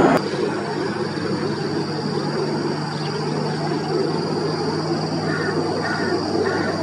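A steady engine drone with a low hum and a thin high whine, starting right after an abrupt cut at the very beginning.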